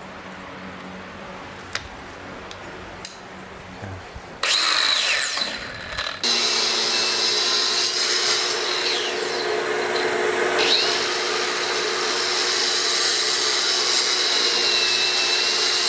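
Cordless angle grinder with a cutoff wheel cutting through fiber-cement backer board (Hardie board). After a few light handling clicks, it starts about four seconds in, stops briefly, then runs steadily with a high whine while cutting along the line.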